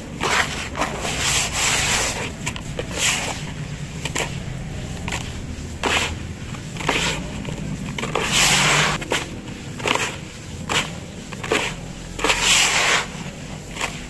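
Hands scooping and squeezing a crumbly sand-cement mix in a tub, the lumps crumbling and falling back in gritty, crunchy rushes about once a second, with longer, louder pours in the middle and near the end.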